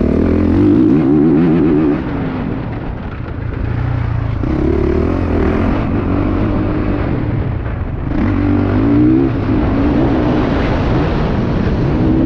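Honda CRF450 motocross bike's single-cylinder four-stroke engine, heard onboard, revving up hard and easing off repeatedly as it is ridden. The revs drop back about two seconds in and again about eight seconds in, then climb again.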